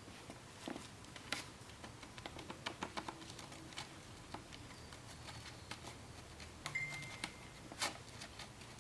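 Scattered faint clicks and taps of small plastic and foam model-airplane parts being handled and pressed into place, with a short high squeak about two-thirds of the way in.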